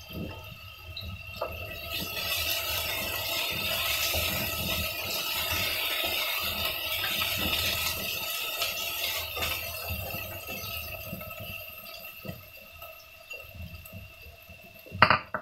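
Meat sizzling in a frying pan on a gas stove while it is stirred with a spatula; the sizzle swells after a couple of seconds and fades in the last few. A sharp clank of metal near the end.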